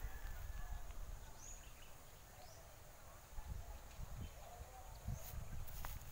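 Quiet rural field ambience: a low, uneven rumble on the microphone with a few faint, short bird chirps scattered through it and a couple of small clicks near the end.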